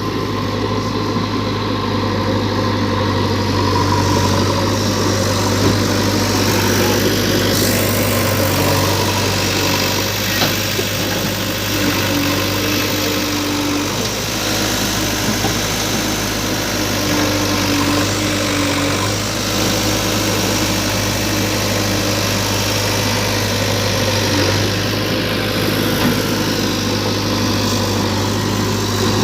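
Heavy diesel engine running steadily at low speed, with a faint whine for a few seconds in the middle and a couple of light knocks.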